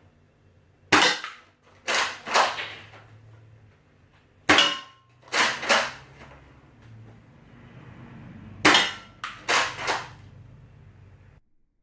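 Nerf Retaliator blaster with an upgraded 6 kg spring, being primed and fired at a target: sharp snapping clacks in three quick groups of three or four, about three seconds apart.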